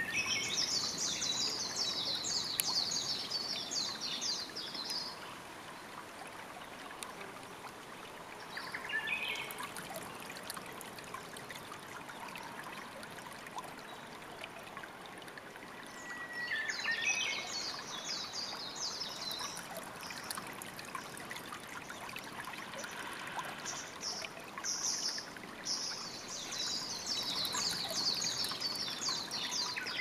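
Small stream trickling steadily, with a songbird singing long, rapid, high twittering phrases three times: near the start, a little past halfway, and near the end.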